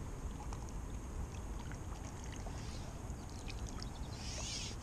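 A fishing pole being handled and fed out over the water: a steady low outdoor rumble with a few faint light clicks, and a short hiss near the end.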